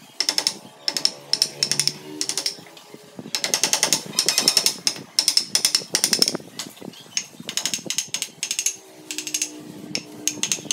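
Hand-pushed carving chisel slicing into wood, quick runs of short crisp cuts and scrapes as chips come away from the carving.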